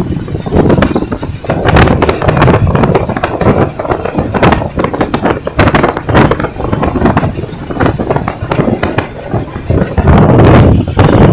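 Wind buffeting the microphone of a camera on a moving motorcycle, in loud, irregular gusts over the motorcycle's engine and tyre noise.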